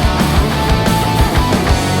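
Loud background rock music with distorted guitars and a steady drum beat.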